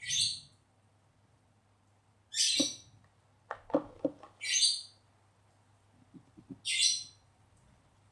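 A bird chirping, one short high call about every two seconds, four calls in all. A few light clicks and taps fall between the calls.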